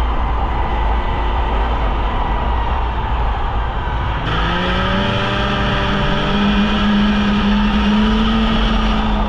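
Polaris Indy snowmobile engine running under way. Its pitch climbs as it speeds up about four seconds in, then holds high and steady.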